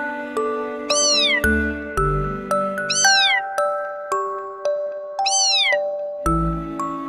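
A small kitten mewing three times, short high-pitched cries that fall in pitch, over gentle background music of soft bell-like notes.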